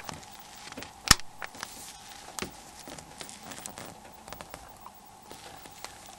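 Plastic snap clips of a Nokia N95's back cover clicking into place as the cover is pressed down: one sharp click about a second in, another near the middle, then lighter ticks and handling noise.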